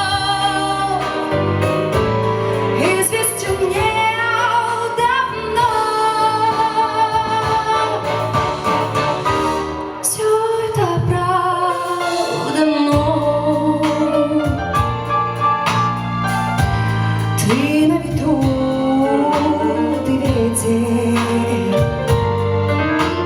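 A woman singing a song with instrumental accompaniment, holding long notes that glide between pitches.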